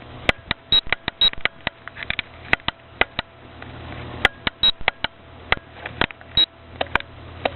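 Fireworks crackling: many sharp, irregular snaps, several a second and sometimes in quick clusters, over a steady low hum.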